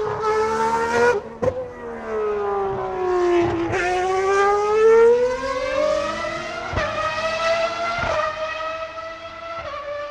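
Racing car engine at high revs. Its pitch sinks for the first three and a half seconds, then climbs and levels off, with a few sharp clicks along the way, and it fades out near the end.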